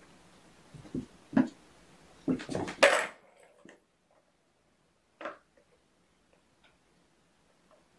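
Kittens thumping across the floor, then a kitten crashing into a plastic ball-track tower toy: a burst of knocks and rattling clatter between two and three seconds in, the loudest sound. One more short knock a little past five seconds.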